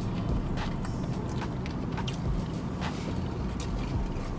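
Steady low rumble of a car engine idling, with scattered light clicks and rustles from eating and handling food.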